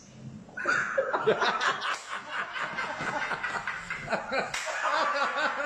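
A man laughing, breaking out about half a second in and going on in quick, repeated laughs.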